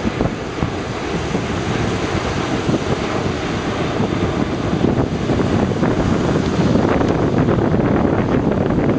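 Wind buffeting the microphone over surf breaking on the beach, with the rumble of a jet airliner's engines as it climbs away after takeoff; the noise grows a little louder in the second half.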